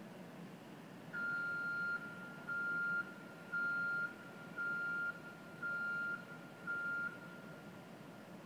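Warning beeper on window-washing equipment sounding six high single-pitch beeps, about one a second, starting about a second in, over a low steady background hum.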